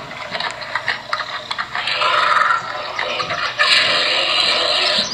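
Soundtrack of a home video played back through a phone's small speaker: rough, scratchy noise with scattered clicks, growing denser and louder for the last second and a half.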